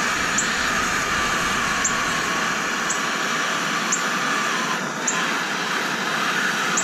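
Handheld gas torch burning steadily with a constant hissing flame, heating corroded, seized bolts in a horn chamber to free them. Faint short high chirps recur about once a second over the hiss.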